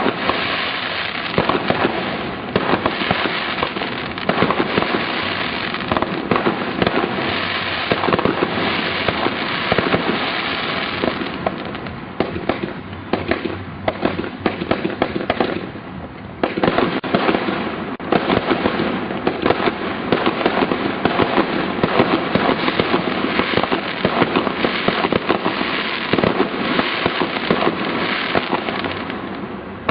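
Fireworks going off in a dense, continuous barrage of rapid bangs and crackles. The barrage thins briefly in the middle, then builds back up.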